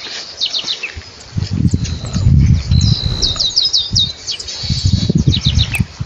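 Saffron finch singing: three quick phrases of rapid, high, sharp chipping notes. Beneath them, from about a second in, a louder uneven low rumble.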